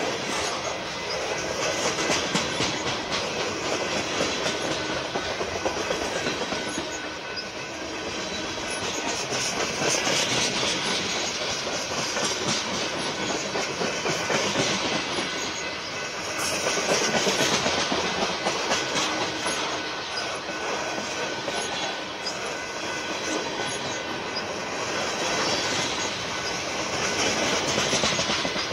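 Freight train cars rolling past close by: a continuous rumble with the wheels clattering over the rails, swelling and easing as each car goes by. The cars are lumber-loaded flatcars and boxcars of a BNSF mixed freight.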